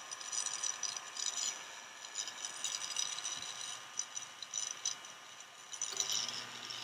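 Proxxon mini drill running with a faint steady tone as its small bit drills a hole into the plastic deck of a model kit, with scratchy, rattling bursts coming and going as the bit cuts.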